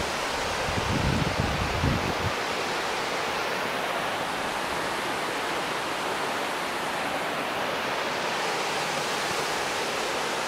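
Steady, unbroken rush of flowing river water and waterfall. A brief low rumble comes in about a second in.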